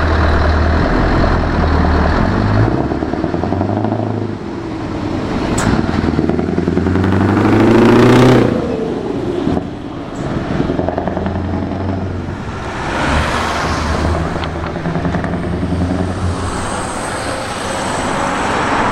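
Open-piped Scania 164 580 V8 truck engine accelerating hard past the listener. The engine note climbs to its loudest about eight seconds in, drops sharply at a gear change, then climbs again.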